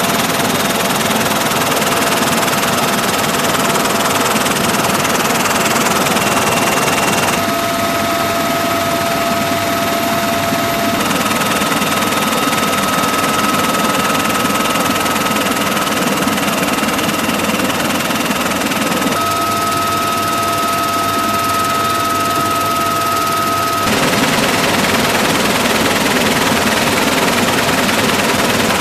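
Helicopter in flight heard from aboard, with the cabin open to the air: loud, steady rotor and engine noise with a constant high turbine whine. The tone of the noise changes abruptly several times.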